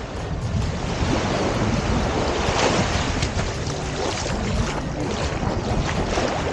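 Waves washing onto a sandy beach, with wind rumbling on the microphone; a louder wash of surf comes about two and a half seconds in.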